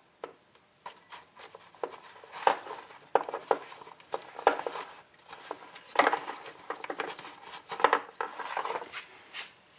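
Irregular clicks, taps and light rattles as small hard parts and wiring are handled and fitted by hand.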